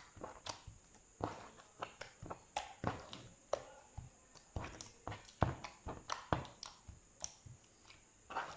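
Slime being squeezed and poked by hand, making irregular clicks and pops, about two a second.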